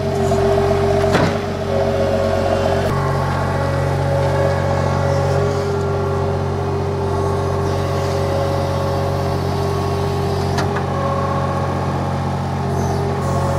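Gehl R105 skid-steer loader's engine running steadily close by, with whining tones that start and stop as the loader arm and bucket are worked. Two sharp knocks, about a second in and again after about ten seconds.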